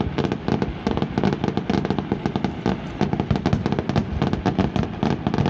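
Fireworks display: a dense, continuous barrage of rapid bangs and crackles, many per second.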